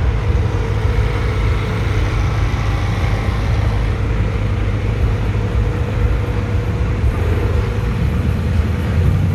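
Cars and street traffic running with a steady low rumble.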